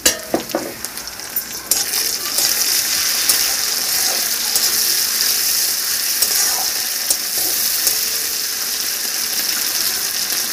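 Chopped tomato and fried onion sizzling in hot oil in a kadai, stirred with a spatula. A knock comes right at the start, and about two seconds in the sizzle rises to a steady high hiss that holds.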